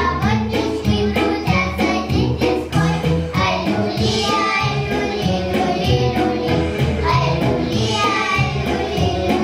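Children's vocal ensemble singing a Russian folk-style song over instrumental accompaniment with a steady beat.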